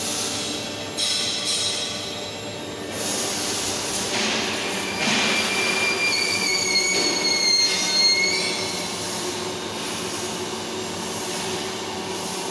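Welding gantry carriage moving on its rails, with steady machine noise and a high, whistling metallic squeal that lasts about three seconds in the middle.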